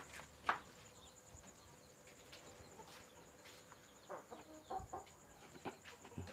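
A chicken clucking faintly a few times, with soft knocks and rustles from the bird being handled.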